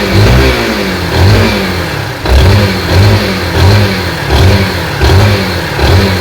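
Yamaha SZ-R's single-cylinder four-stroke engine revved in quick repeated throttle blips, its pitch rising and falling over and over. It runs clean after the repair, with none of the earlier abnormal engine noise.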